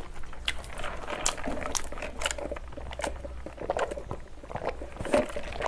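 Close-miked wet mouth sounds of sipping a soft drink through a straw from a paper cup, with small clicks and liquid slurps.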